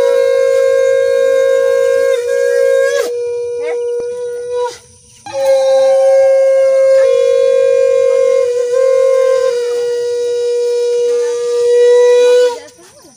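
Conch shell (shankha) blown in long, steady, horn-like blasts. The first blast dips slightly in pitch and fades out about four to five seconds in. After a brief breath, a second blast is held for about seven seconds.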